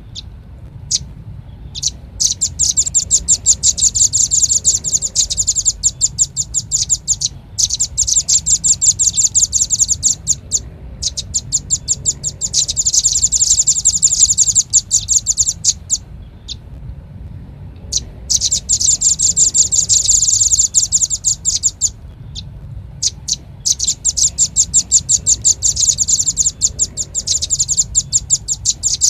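Velvet-fronted nuthatch calling: fast trills of sharp, high chips, many to the second, in runs of several seconds broken by short pauses, over a faint low hum.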